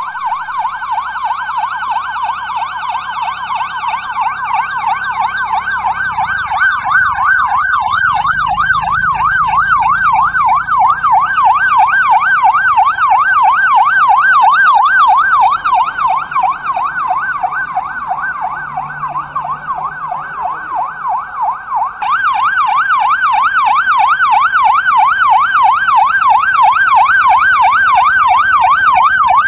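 Police siren sounding in a fast, continuous warble, its pitch swinging up and down several times a second. It drops somewhat in loudness past the middle, then comes back louder for the last several seconds.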